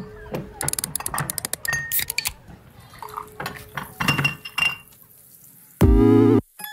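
Rapid glassy clinks and clatters, with a few short ringing tones, opening the background music; just before the end a loud musical chord cuts in briefly as the song proper starts.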